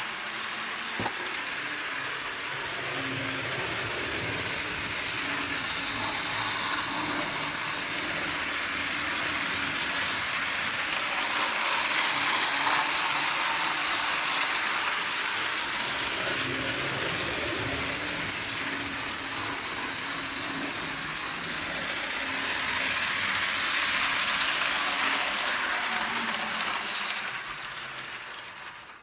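HO-scale Model Power/Playart Shinkansen bullet train model running on the track: a steady whirring of its small motor and gears with the rattle of wheels on rail. It grows louder about halfway through and again later on, then dies away at the very end.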